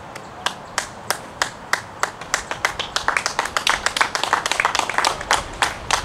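A small group of spectators clapping: separate claps at first, quickening into overlapping claps through the middle, then thinning out near the end.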